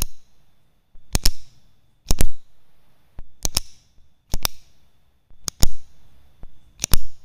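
Capacitor-bank spot welder discharging through its handheld welding-pen probes into metal strip: a sharp snapping crack with each weld, about seven in all at roughly one a second, many of them a quick double snap.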